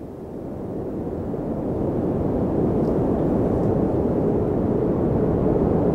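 Wind blowing in a low, even rush during a snowstorm, swelling over the first two seconds and then holding steady.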